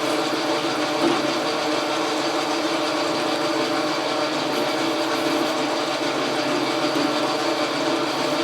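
Logan metal lathe running steadily under power, its gear train giving a whine of several steady tones over a mechanical rattle.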